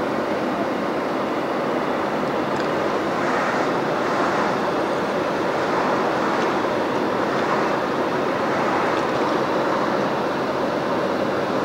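Steady rushing road noise of a moving car heard from inside it: tyres on the road and the engine running, with no sudden events.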